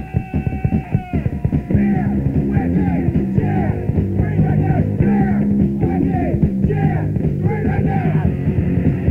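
Punk rock song played from a home-made band cassette. Drums first, then the full band with vocals comes in about two seconds in.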